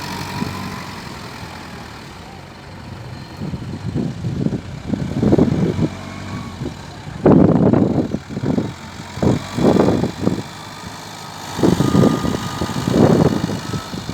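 Tata vehicle's engine running at idle, surging louder several times in short irregular bursts, during a test of its freshly repaired transmission.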